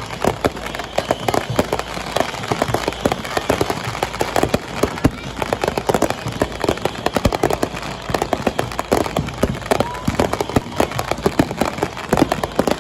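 Fireworks display going off in a rapid, continuous string of bangs and crackles.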